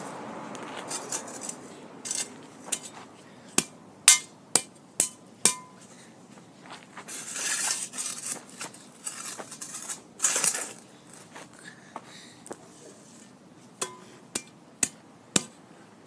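Metal spade knocking and scraping on dirt: five sharp clinks about half a second apart, two longer scraping swishes in the middle, then four more clinks near the end.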